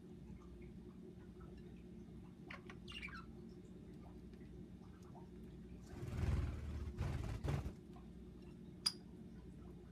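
Pet budgerigars chirping faintly now and then over a steady low hum, with a short rustling burst lasting about two seconds partway through and a sharp chirp near the end.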